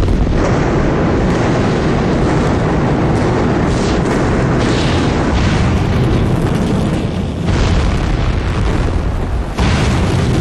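Explosion sound effect: a sudden blast followed by a long, loud rumble, with fresh surges about two-thirds of the way through and again near the end.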